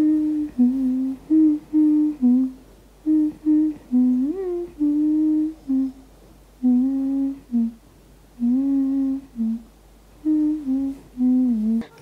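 A voice humming a slow tune in short held notes with pauses between phrases, with a rising slide about four seconds in.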